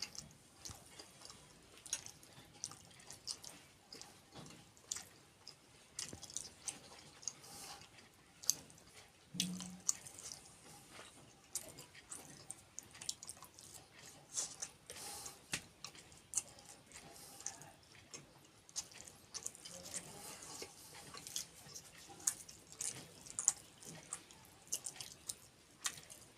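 Mouth sounds of someone eating puri with kheer: chewing and irregular short, wet-sounding clicks.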